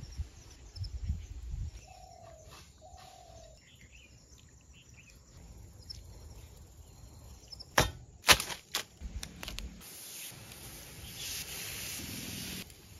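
Hands rubbing marinade into raw mutton chops and pomfret, a few sharp metallic clicks about eight seconds in, then from about ten seconds a steady sizzling hiss as the spiced chops go onto a grate over hot charcoal.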